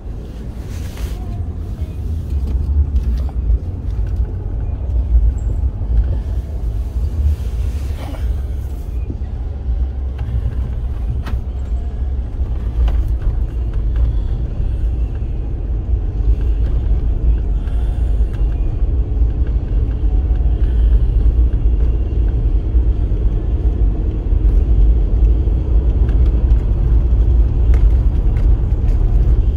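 Steady low road-and-engine rumble heard inside the cabin of a vehicle driving on a snow-covered road, growing gradually louder over the stretch, with a few faint clicks.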